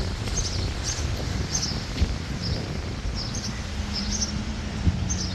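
A small bird chirping over and over, about two short high chirps a second, over a steady low rumble of wind and outdoor noise.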